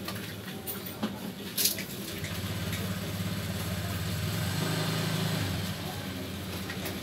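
A low engine hum that swells about four seconds in and eases off again, with two short clicks between one and two seconds in.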